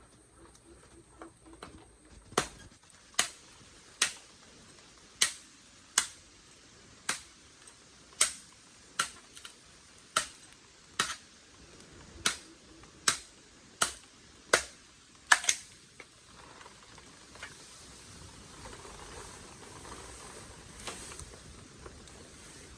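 A steady series of sharp knocks or chops, a little more than one a second, which stop about two-thirds of the way through and give way to a faint rustling hiss.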